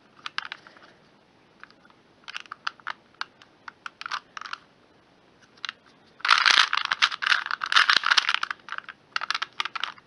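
Plastic 2x2 Rubik's Cube being turned by hand: scattered clicks and rattles of its layers snapping round, then a dense run of rapid clicking lasting about two and a half seconds in the second half, and a few more clicks near the end.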